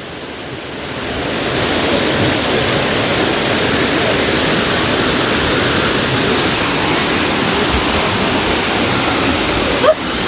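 Waterfall rushing with a steady, even roar that swells over the first couple of seconds and then holds, with a brief click near the end.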